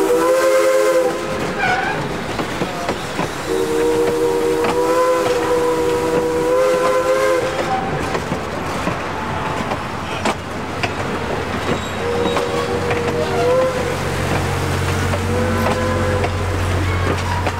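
Jeddo Coal 85 steam locomotive's chime whistle blown from the head of the train in four blasts, the second one long, over the steady clatter of passenger cars rolling past close by. A low rumble joins in during the second half.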